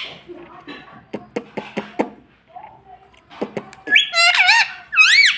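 Ringneck parrot calling: a scattering of sharp clicks in the first couple of seconds, then a loud run of shrill, high-pitched calls whose pitch rises and falls, near the end.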